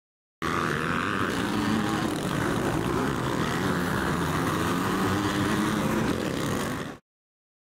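Several motocross dirt bike engines running hard on a track, their pitch rising and falling as the riders work the throttle. The sound cuts in abruptly just after the start and cuts off abruptly near the end.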